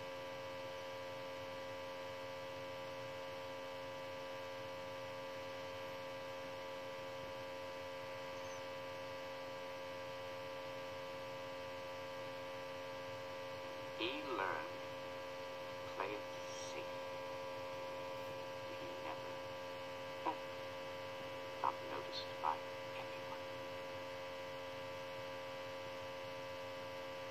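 Steady electrical mains hum made of several fixed tones, with a few brief faint sounds in the second half.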